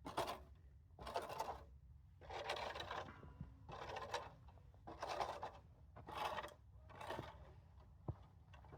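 A stall-cleaning tool scraping and jabbing at frozen horse manure, about seven rough strokes roughly a second apart; the frozen piles will not break apart.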